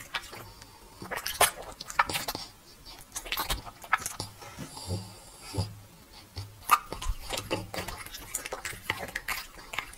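Dog chewing a piece of cooked meat, with irregular wet smacks and clicks of its jaws.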